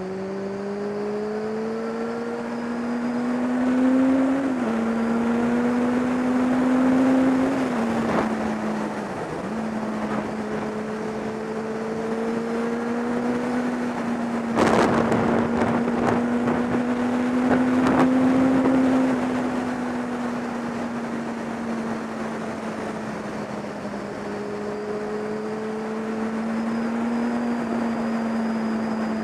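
Kawasaki ZX-10R's inline-four engine pulling hard, its note climbing and dropping twice in quick upshifts, then running at a steady cruising note, with wind rushing over the camera microphone. A sudden loud burst of noise comes about halfway through.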